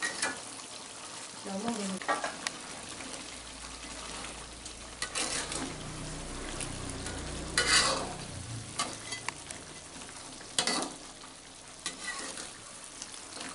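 A metal spatula scrapes and stirs around a metal wok of fish simmering in thick chilli-tomato sauce, over a steady sizzle from the sauce. The scrapes come as separate strokes every couple of seconds, the loudest a little past the middle.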